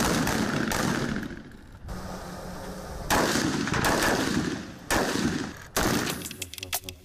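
Rifle gunfire with echo: several shots and short bursts from assault rifles. Near the end, a short electronic sting.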